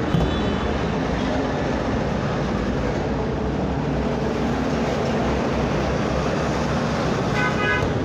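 Steady background traffic noise: a continuous low rumble and hiss with no single event standing out.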